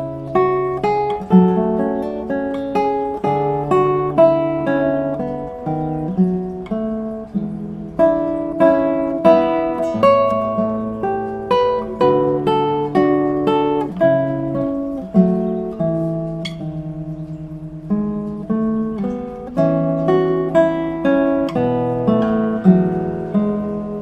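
Background music: solo acoustic guitar playing plucked notes and chords at an even pace.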